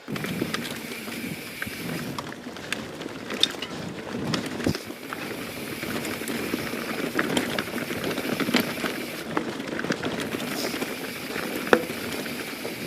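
YT Jeffsy 27 mountain bike rolling along dirt singletrack: a steady crackle of knobby tyres on the trail surface, with scattered clicks and rattles from the bike.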